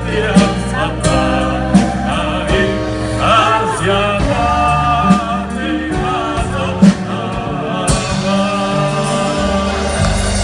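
Live song with a band: a woman and a man singing together into microphones over drums and guitar, with regular drum hits.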